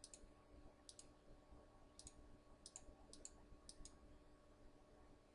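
About six faint, irregularly spaced computer mouse clicks, each a quick press-and-release, over near silence. The clicks are keys being pressed on an on-screen keyboard.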